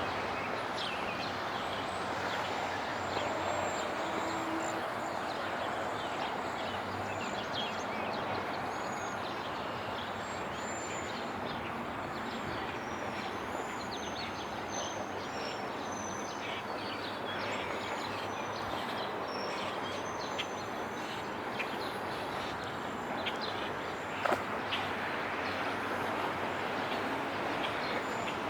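Steady hum of city street traffic, with small birds chirping throughout and a single sharp knock near the end.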